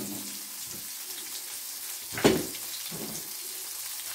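Two beef burger patties sizzling in oil in a frying pan, a steady crackle. A sharp knock about two seconds in, and a softer one a moment later.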